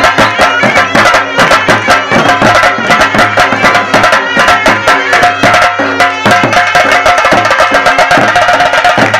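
Live traditional folk music: double-headed barrel drums beaten with sticks in a fast, driving rhythm, under a sustained high melody line.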